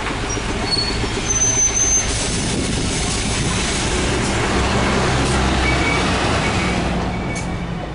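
Diesel engines of large city buses at close range: one idling nearby while another drives past, its engine hum building toward the middle and fading near the end.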